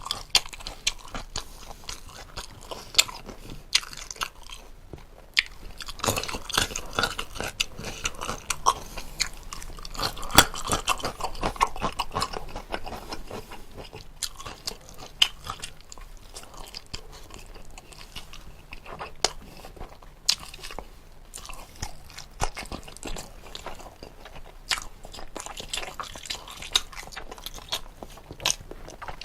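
A person eating close to the microphone: chewing and biting jokbal (braised pig's trotters) and lettuce-wrapped bites, with crunchy bursts and sharp mouth clicks scattered irregularly.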